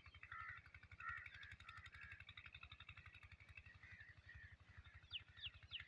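Faint birds chirping, with a few quick falling calls near the end, over a low, rapidly pulsing hum.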